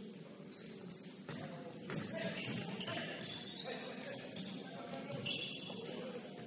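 Basketball game sounds in a gym: indistinct players' voices with scattered knocks of the ball bouncing and footfalls on the court.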